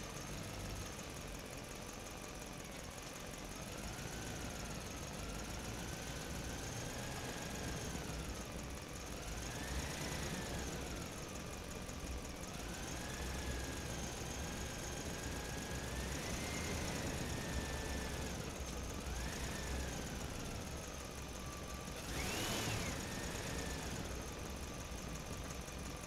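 A motor-like whine that rises and falls in pitch every few seconds over a steady low rumble, with the sharpest rise about 22 seconds in, as a toy tractor is moved and hitched to its trailer.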